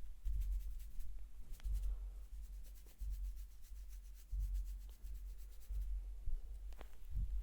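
Hands rubbing a scalp and hair in a head massage, in slow, regular strokes about every second and a half, with a fine crackle from the hair.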